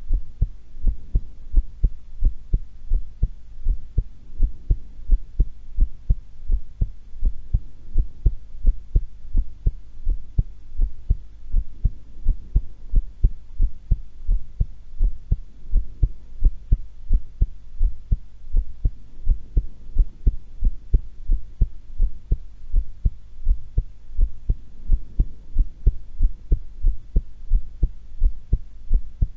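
A woman's heart beating at rest, recorded close up: a steady, regular lub-dub of low thumps.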